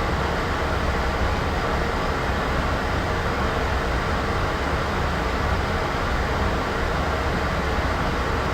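White-noise sound effect: a steady, even hiss with a heavy low rumble underneath.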